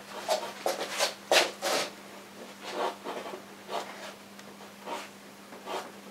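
A bristle paintbrush working thick oil paint, an irregular series of short scratchy strokes over a faint steady hum.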